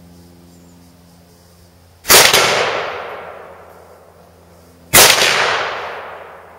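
Two loud blasts about three seconds apart, the first a second or two in. Each one rings out in a long echo that dies away over about two seconds.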